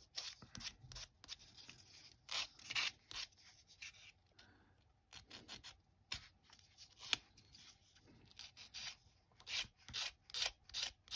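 Small injection-moulded plastic model kit part being rubbed on a hand-held UMP sanding stick: short, irregular scratchy strokes, cleaning up the nub where it was cut from the sprue.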